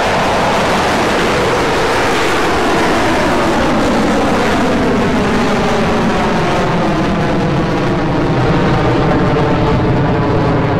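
Rocket Lab Electron rocket's nine Rutherford first-stage engines roaring steadily as the rocket lifts off and climbs. The roar has a slow sweep that falls in pitch.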